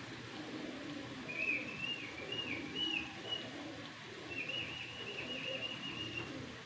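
A small bird chirping in two quick trilled runs of rapid repeated notes, the second starting a little after the middle.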